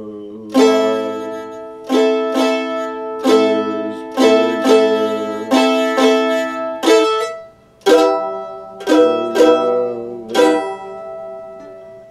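Mandolin played slowly, about fourteen plucked notes and chords at uneven spacing, each ringing and fading, with a short pause a little past halfway; the last one rings out and dies away near the end.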